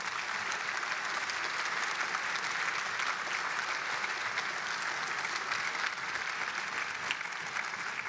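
Audience applauding: a steady, dense patter of many hands clapping.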